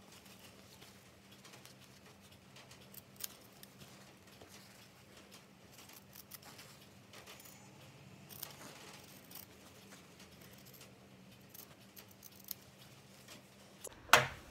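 Scissors cutting through cotton fabric fused to interfacing, a scattering of faint snips and blade clicks. A sharp knock near the end.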